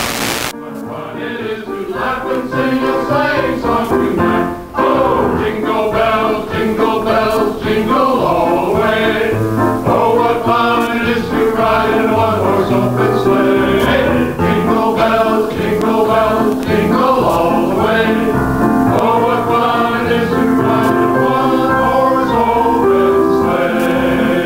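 Male vocal group singing a song together in harmony.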